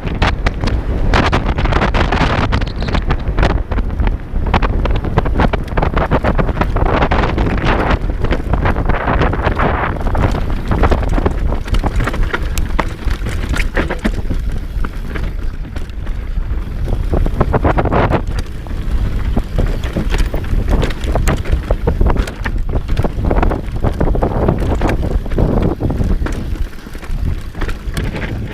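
Wind buffeting the microphone over an enduro motorcycle's engine running under way, with frequent knocks and rattles throughout.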